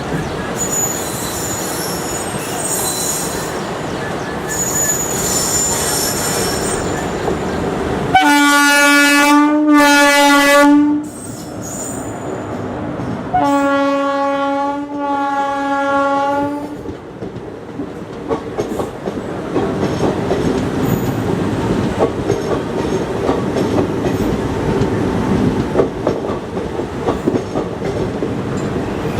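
WAP-4 electric locomotive horn sounding two long blasts, each about three seconds, a couple of seconds apart. A steady rumble comes before them, and after them the passing train's wheels clatter rhythmically over the rail joints.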